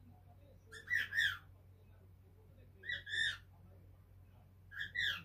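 A five-month-old cockatiel calling: three short two-note chirps about two seconds apart, over a faint steady hum.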